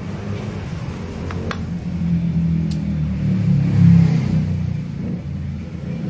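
Low, steady engine rumble, swelling to its loudest about four seconds in, as of a motor vehicle running or passing, with a few light plastic clicks as AA batteries are fitted into a toy remote control.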